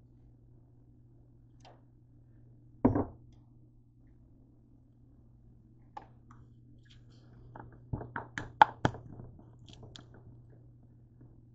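Kitchen handling noises over a low steady hum: one solid thunk about three seconds in, then a quick run of sharp clicks and knocks around eight to nine seconds in, as bottles and the camera are moved about on the counter.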